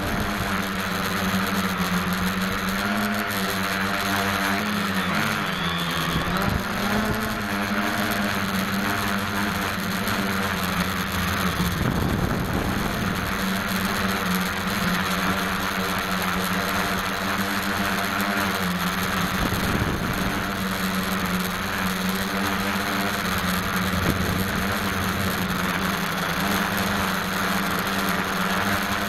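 The four electric motors and propellers of an SK450 quadcopter droning in flight, heard from a camera mounted on the airframe. The drone holds one steady pitch that dips and wavers a few times as the throttle changes, with rushing air noise underneath.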